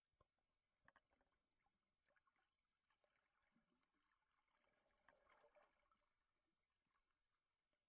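Near silence underwater: faint scattered clicks, with a slight swell of noise about five seconds in.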